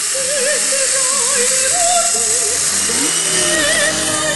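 Singing in an opera-like style with a wide, even vibrato, several voices or notes layered, over a steady high hiss.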